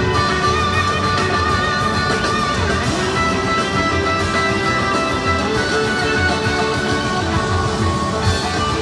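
Live rock band playing, with electric guitar to the fore holding long sustained notes over the drums.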